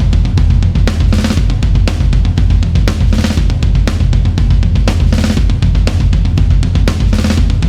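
Rock drum groove from the EZdrummer 3 Classic Rock EZX sampled kits: kick, snare and cymbals in a steady beat, with a cymbal wash about every two seconds and a deep bass underneath.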